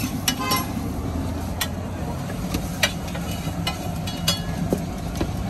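Metal spatula clinking and scraping against a large flat metal griddle (tawa) a few scattered times, over a steady low rumble.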